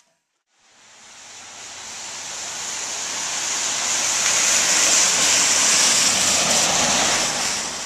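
Rushing noise of a passing vehicle, building gradually from silence over about five seconds and fading near the end.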